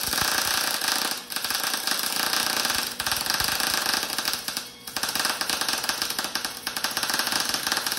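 MIG welder arc crackling steadily as it lays a bead on steel, short-circuit welding with 0.023-inch solid wire and 75/25 shielding gas. The arc breaks off briefly a few times, about a second in, near three seconds and near five seconds.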